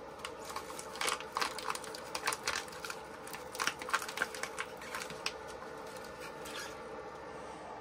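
Ice pack crinkling and rustling as gloved hands squeeze and press it, in a run of short irregular crackles that stops about seven seconds in. A faint steady hum continues underneath.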